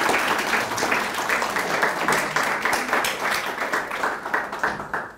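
Audience applauding, dense clapping that thins and fades out near the end.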